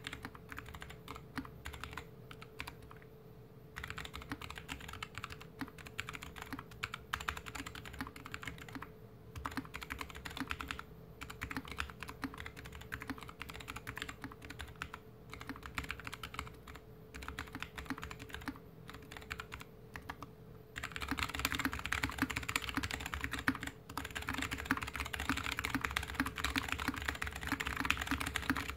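Typing on a GK61X mechanical keyboard with stock Kailh BOX Mute Jade switches, a stainless steel plate, a plastic case and DSA keycaps, set on a desk mat. Slow key presses with short pauses give way about two-thirds of the way through to fast, dense, louder typing.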